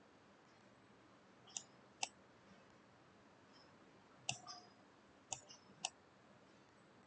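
Computer mouse button clicks: about half a dozen short, faint clicks, spaced out irregularly and bunched in the second half, over faint room hiss.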